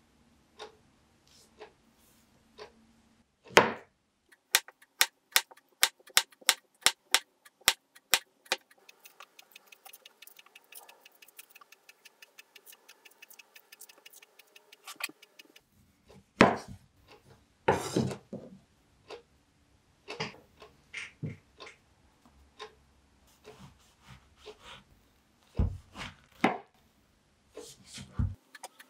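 Kitchen prep sounds: a knife chopping on a cutting board in a run of about a dozen even strokes, a little over two a second. A faint rapid ticking follows, then scattered clatter and knocks, with a couple of low thumps near the end.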